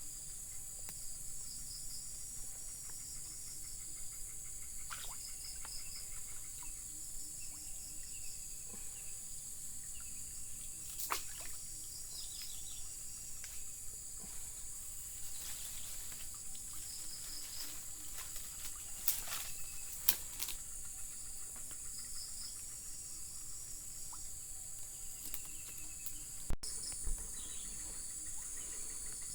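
Insect chorus: a steady high-pitched shrill with a pulsing trill beneath it, broken by a few short clicks or knocks.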